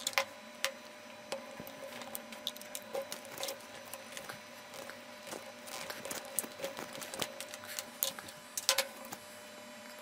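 Hands unwinding a turn of insulated copper wire from the secondary winding of a microwave oven transformer: irregular clicks, rustles and crinkles of the wire against the core, with a sharper click at the start and a louder cluster near the end. The turn is being removed to bring the output voltage down, and a faint steady whine sits underneath.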